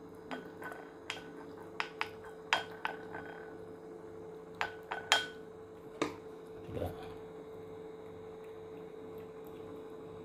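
Scattered sharp clinks on a ceramic plate, about a dozen in the first seven seconds, as a spoon serves food onto it and a kitten eats from it. A steady electrical hum runs underneath.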